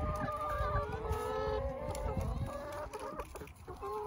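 A flock of hens clucking and trilling, many drawn-out calls overlapping.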